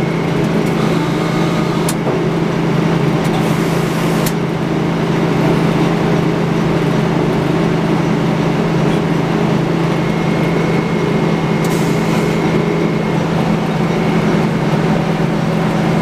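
Sawmill machinery running steadily: a constant low drone with a faint high whine, and a few brief knocks.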